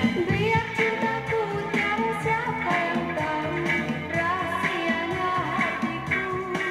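A 1970s Malay pop song playing from a vinyl LP on a turntable: a band with a steady beat and a held melody line.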